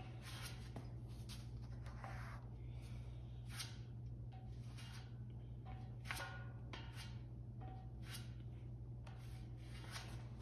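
Plastic spreader scraping Bondo body filler across a steel air tank in repeated short strokes, roughly one to two a second. A steady low hum runs underneath.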